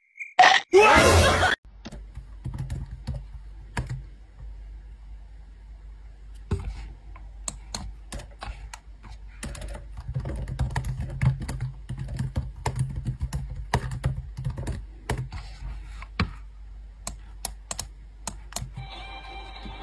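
Typing on a laptop keyboard: irregular, quick key clicks, some in fast runs, over a low background hum. A brief loud burst of sound comes in the first second and a half, before the typing starts.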